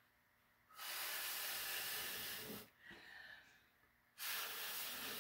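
Breath blown through a turkey baster, pushing wet acrylic paint outward across a canvas to form flower petals. It comes as two long puffs of air, each about two seconds, with a short pause between them.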